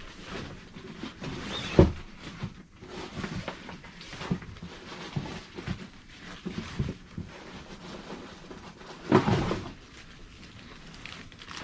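Things being handled while food is prepared: scattered knocks and clicks, with one sharp knock about two seconds in and a longer rustle near the end.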